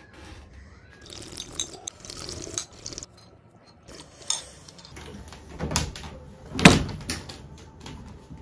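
Household handling noises: rustling, then a few knocks, the loudest a sharp knock with a short ring about two-thirds of the way in.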